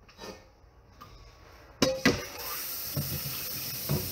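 Kitchen sink tap running water while dishes are washed, with two sharp clatters of dishware about two seconds in and a few lighter knocks after.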